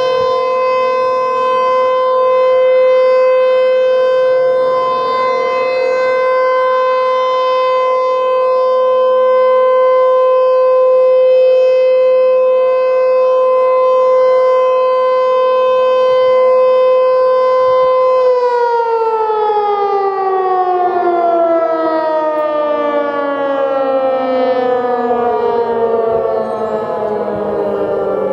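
ASC T-121 outdoor warning siren sounding a loud, steady single tone during a test. About two-thirds of the way through it begins winding down, its pitch falling steadily.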